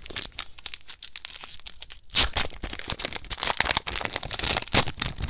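Foil wrapper of a Magic: The Gathering booster pack crinkling and being torn open by hand, a dense run of crackles and rips with the loudest tear about two seconds in.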